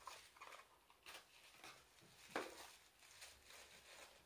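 Faint rustling and crinkling of wrapping being pulled off a small gift by hand, as scattered soft crackles with one sharper crackle about two and a half seconds in.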